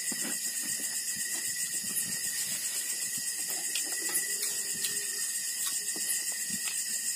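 Night insects (kuliglig) calling steadily: a constant high trill with a fast, evenly pulsing shrill chorus above it. Scattered light clicks of dishes sound over it.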